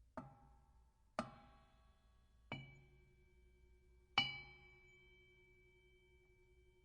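Boxing ring bell struck four single times, each strike ringing out and dying away. The last strike is the loudest and rings the longest.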